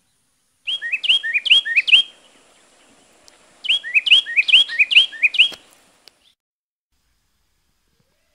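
A songbird singing two short phrases, each a quick run of repeated falling whistled notes in pairs, the second phrase following after a pause of about a second and a half.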